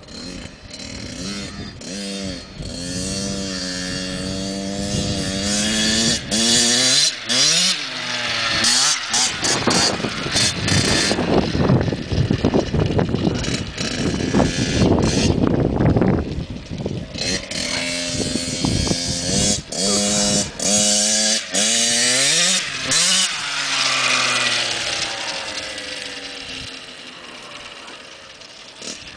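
Small dirt bike engine revving as it rides around, its pitch climbing through the gears twice and then sweeping down quickly as it passes close by. It is loudest in the middle and fades near the end as the bike moves off.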